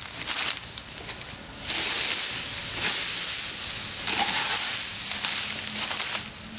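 A steady, loud hiss that starts about two seconds in and stops shortly before the end, with a faint low hum joining it about four seconds in.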